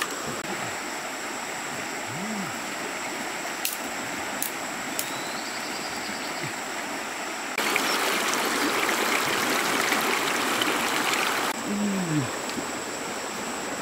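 Steady rushing of a river, louder for a few seconds in the middle, with a few faint clicks.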